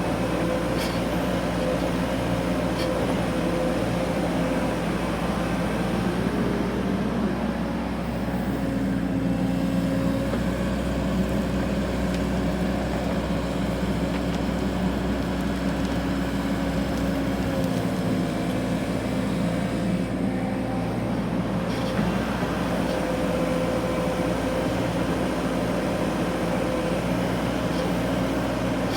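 Excavator engine running steadily under load, its pitch shifting slightly about ten seconds in.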